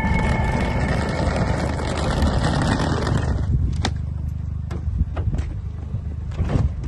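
Hard-shell suitcase wheels rolling over asphalt for about three seconds, over a steady low rumble. Then the rolling stops and a few scattered clicks and knocks follow.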